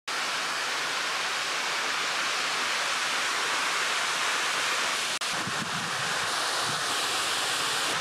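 Steady rushing outdoor noise with a brief dropout about five seconds in, followed by low, uneven wind buffeting on the microphone.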